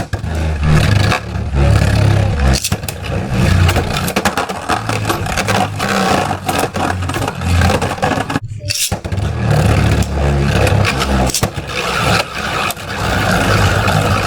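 Beyblade spinning tops whirring and clashing in a plastic stadium: a loud, continuous grinding scrape with rapid knocks. It starts abruptly, breaks off for a moment a little past halfway, then goes on.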